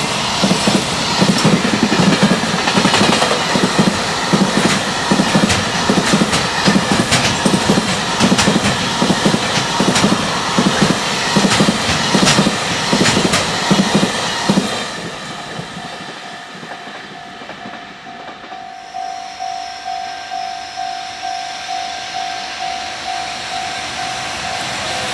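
Freight train passing at speed, its wagon wheels clattering rapidly over the rail joints. The last wagon goes by about 15 s in, leaving a level-crossing warning bell ringing on its own, about one and a half dings a second.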